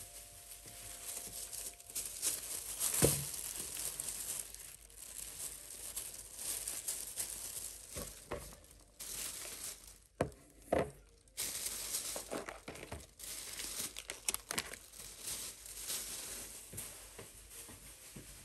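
Crinkling and rustling of something being handled, with many small clicks. A sharp knock about three seconds in and two more around ten seconds in.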